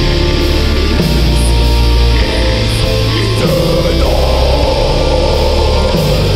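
Funeral doom metal played live by a band: heavy distorted electric guitars and drums in slow, sustained low chords that change every second or so.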